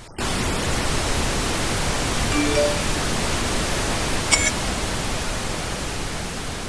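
Loud, even static hiss that cuts in suddenly after a brief dropout and slowly fades. It carries a few faint brief tones about two and a half seconds in and a small click with tones about four seconds in.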